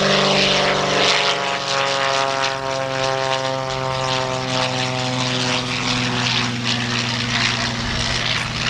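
Fletcher Fu-24 topdressing aircraft's 400 hp piston engine and propeller droning steadily through a low pass. From about a second in, the higher tones of the drone sink slowly in pitch over several seconds.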